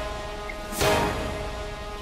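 Music: sustained held chords, with a loud swelling hit that recurs about every second and a half, one landing a little under a second in.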